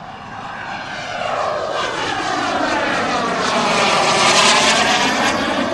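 Jetcat P-220RXi model turbine of a large-scale RC Fiat G91 jet flying past, its jet noise growing louder to a peak about four seconds in and then starting to fade.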